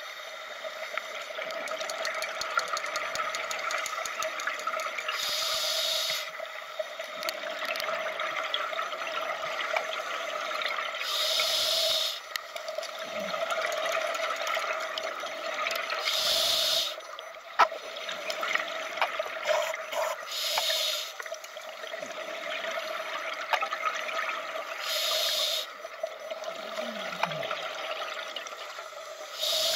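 Underwater sound of a scuba diver breathing through a regulator: five bursts of exhaled bubbles hissing, about every four to five seconds, over a steady hum.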